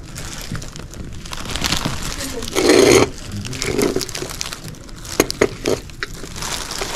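Plastic zip-top bags of small trinkets crinkling and rustling as they are handled. A short loud burst comes just before the three-second mark, and a few sharp clicks follow about five seconds in.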